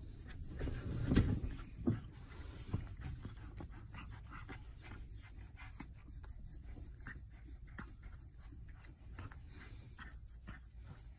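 Soft rustling and scratching of a hand rubbing a young lion cub's fur, with a louder bump and rustle about a second in.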